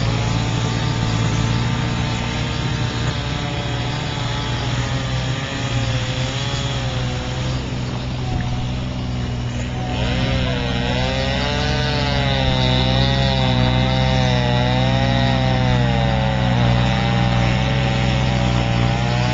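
Chainsaw engine running steadily while cutting thick lake ice, its pitch wavering up and down.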